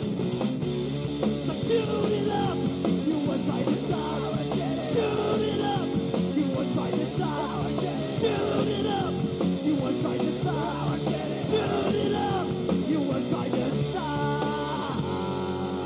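Punk rock song with distorted guitars, drums and shouted vocals; near the end the vocals drop out, leaving the distorted guitar.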